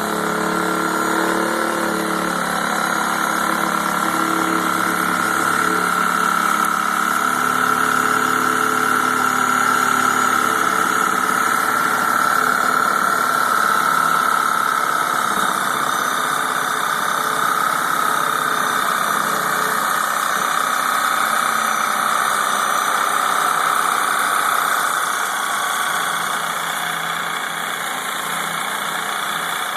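Reciprocating saw running steadily with a continuous whine as it cuts through palm fronds.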